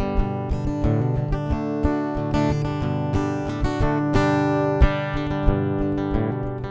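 Guitar music: quick picked notes in a country chicken-pickin' style over a steady low beat.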